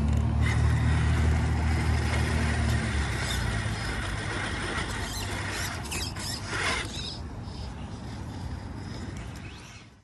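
Axial Capra RC rock crawler's Hobbywing Fusion 1800kv brushless motor and geared drivetrain whirring as it creeps over rocks. A low hum is strongest for the first three seconds and then fades, with a short louder noise about two-thirds through.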